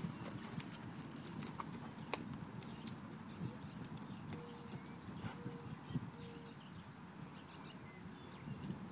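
Horse's hoofbeats on loose arena dirt, a steady run of dull thuds as the horse follows a calf around the pen, with scattered sharp clicks over them.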